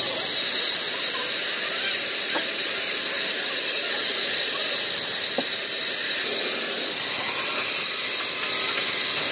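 Large vertical band saw in a sawmill running, a steady high hiss, as timber is fed through the blade.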